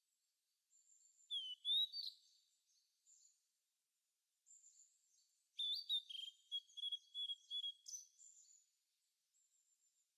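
A small songbird chirping and twittering in two short phrases of quick high notes, one about a second in and a longer one from a little past the middle, with silence between.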